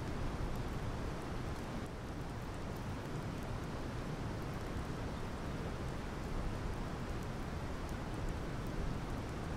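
Steady wind with light rainfall, a low, even rumble with faint scattered drops ticking.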